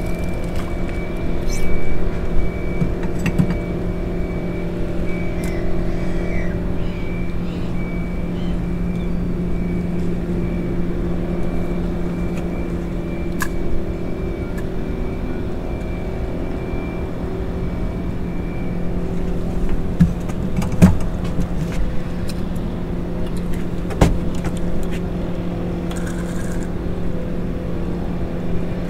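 Small boat's outboard motor idling steadily, with a few sharp knocks and clicks from the boat and tackle.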